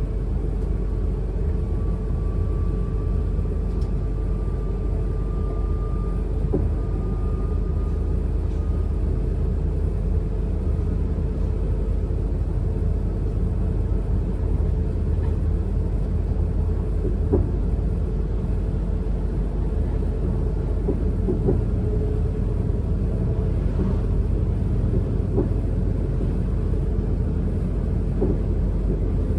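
Class 444 Siemens Desiro electric multiple unit running, heard from inside the carriage: a steady low rumble, with a faint whine that rises slightly over the first nine seconds or so and a few light knocks.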